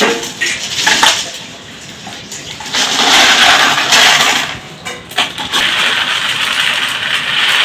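Small aquarium gravel stones clicking as they are dropped into the glass tank, then water pouring and splashing into the aquarium from about three seconds in, dipping briefly before it carries on.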